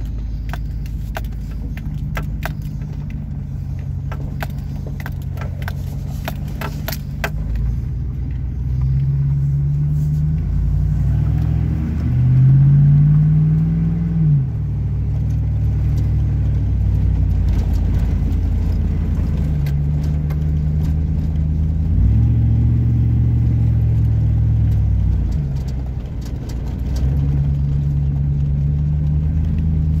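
Car exhaust running through an 8-inch Cherry Bomb glasspack muffler, heard from inside the cabin while driving: a low drone whose pitch and loudness rise and fall with the throttle, loudest about twelve seconds in. Light sharp clicks over the first several seconds.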